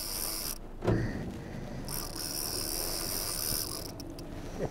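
Shimano conventional fishing reel being cranked, its gears whirring and clicking in two spells, with a knock of handling about a second in.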